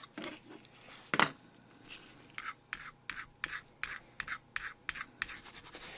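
Metal file rasping across a bare diecast zinc-alloy toy car body in short, quick strokes, about four a second, taking off casting marks. A single sharp knock about a second in.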